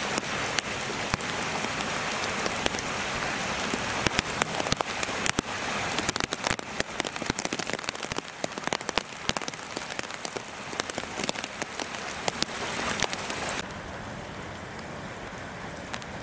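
Heavy wet snowfall hitting surfaces: a dense hiss with many small sharp ticks. Near the end it drops suddenly to a quieter, steadier hiss.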